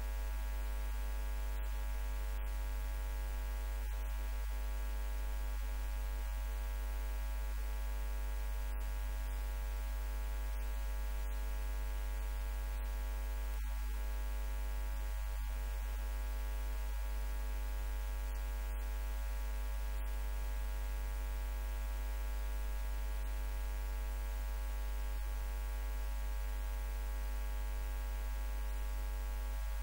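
Steady electrical mains hum: a low hum with a ladder of higher overtones above it, the level unchanging, with no speech heard over it.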